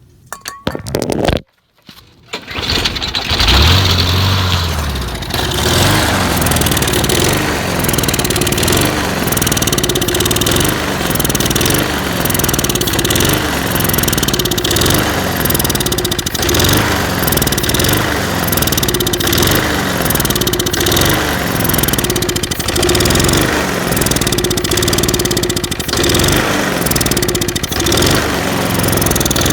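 Briggs & Stratton lawn mower engine starting about two seconds in and then running, its speed rising and falling every second or two as it is kept going on sprayed starting fluid. It won't run on its own fuel because the passages in the carburettor's float bowl bolt are clogged, starving it of fuel.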